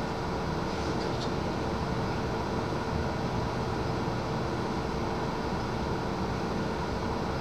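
Steady fan hum of room ventilation: an even rushing noise with a constant low tone under it, and a couple of faint ticks about a second in.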